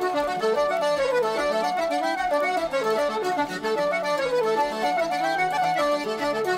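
Instrumental background music: a brisk, continuous melody played over steady held lower notes.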